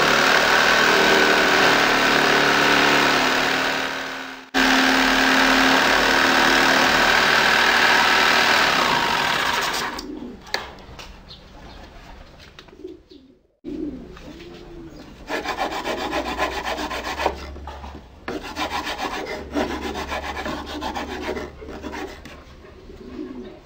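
A power tool working wood runs loud and steady for the first ten seconds, cut off briefly about four and a half seconds in. After that come quieter scrapes and knocks of wooden parts being handled and tapped together.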